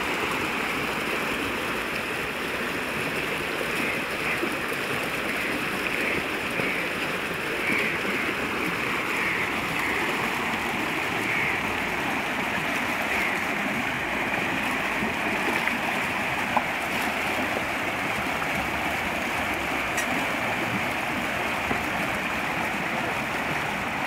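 Canal water rushing and splashing through the lower buckets of a Persian wheel, an iron bucket water wheel driven by the current; a steady, unbroken flow of water noise.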